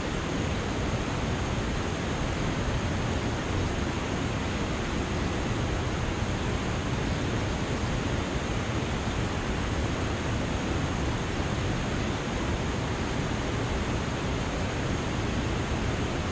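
Steady rush of river water spilling over a mill dam, an even, unchanging hiss and roar.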